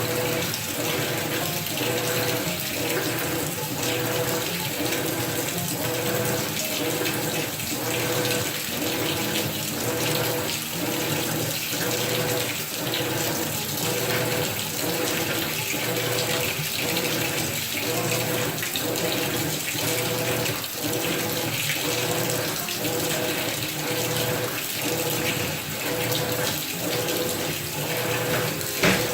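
Maytag top-load washing machine with water moving in the tub, a regular pulse a little faster than once a second over a steady hum.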